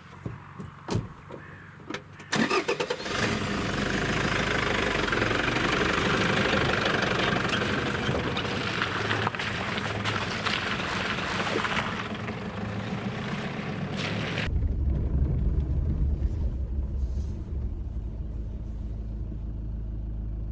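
A few clicks and knocks, then a vehicle engine starts about two seconds in and runs as the vehicle drives off. Partway through, the sound changes abruptly to a lower, duller rumble.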